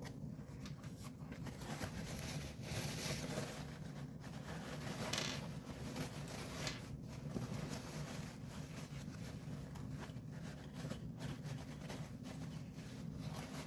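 Irregular rustling and scraping handling sounds from work on a bench, over a steady low hum.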